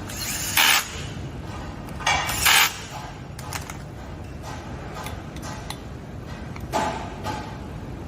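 Metal tools and scooter parts clinking and scraping against each other in three short bursts, about half a second in, around two seconds in, and near the end.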